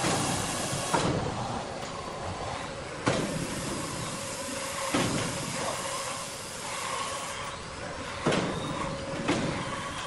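Sawmill machinery running with a steady hiss, broken by about five sharp knocks and clunks as a large log is shifted into position on the saw carriage.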